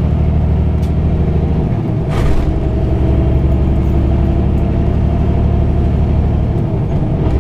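Semi truck's diesel engine droning steadily inside the cab while cruising, with road rumble underneath. A brief hiss about two seconds in.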